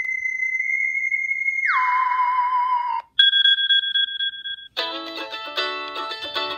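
Apple iPad alert tones played one after another: a held electronic tone that drops sharply in pitch partway through and stops, then a short steady beep. A plucked-string melody starts near the end.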